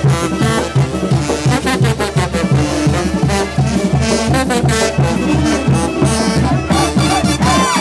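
Live brass band with drums playing a lively dance tune, the tubas and horns carrying a steady beat.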